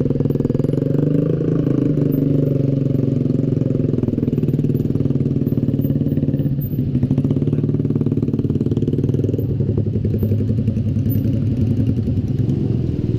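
Yamaha Xabre's 155 cc single-cylinder engine running at low speed as the bike rolls slowly, its pitch rising and falling a little as the throttle is eased on and off.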